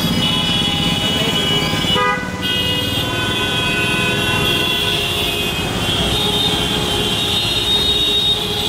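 Jammed road traffic with many vehicle horns honking over and over on top of a rumble of engines. The horns break off briefly about two seconds in.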